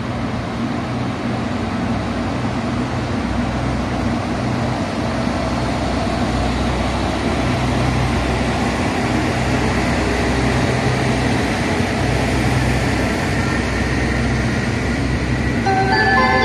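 Diesel railcar engines running as a train pulls out and gathers speed, a steady low drone that grows louder about halfway through. A station chime starts near the end.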